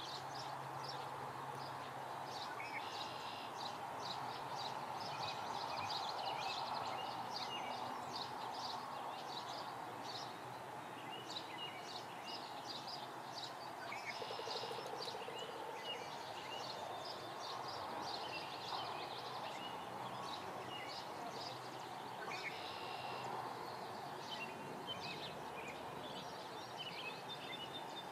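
Many short bird chirps and calls keep coming and going over a steady wash of outdoor ambient noise.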